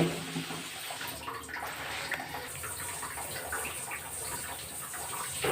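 Cubes of paneer frying in hot oil in a pan, with a steady sizzle and small crackles throughout.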